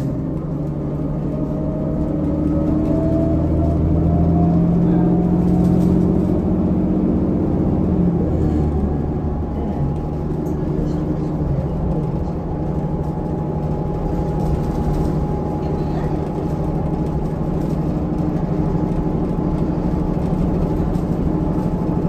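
Cummins ISL diesel engine of a New Flyer D40LFR transit bus heard from inside the passenger cabin, pulling with its pitch and loudness rising over the first several seconds, dropping about eight seconds in, then running on steadily at cruise with a thin high whine.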